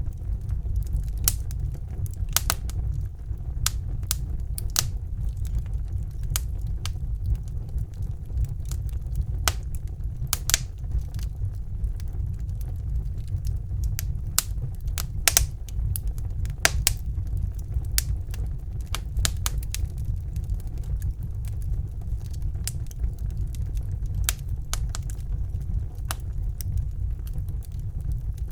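Wood fire burning in a fireplace: irregular sharp crackles and pops, a few a second, over a steady low rumble of the flames.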